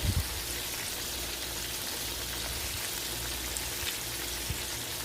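Flour-coated chicken frying in hot oil: a steady sizzle with scattered small pops, and a low thump right at the start.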